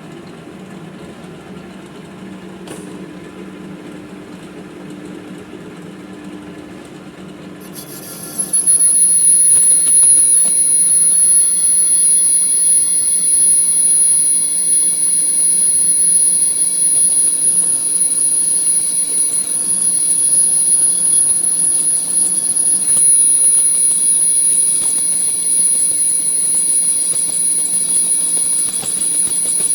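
Manual metal lathe running, then about eight seconds in a much louder, steady high-pitched squeal sets in and holds, the sound of the tool cutting into the metal workpiece.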